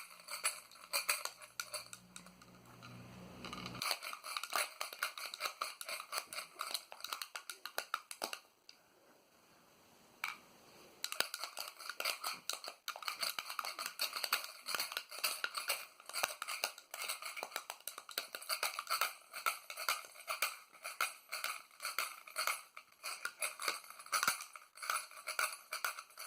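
Rapid, irregular clicking and clinking of small hard objects, many strikes a second, easing off for a few seconds about eight seconds in before picking up again.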